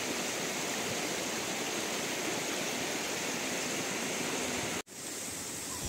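River water rushing steadily over rocks, an even hiss of flowing water. It cuts out for an instant near the end and comes back slightly quieter.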